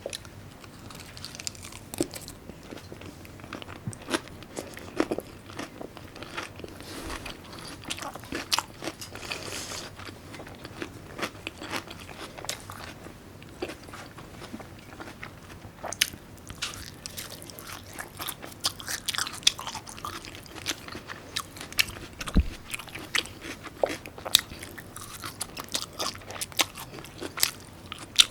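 Close-miked eating of raw salmon and side dishes: chewing and mouth sounds with irregular wet clicks, smacks and crunches.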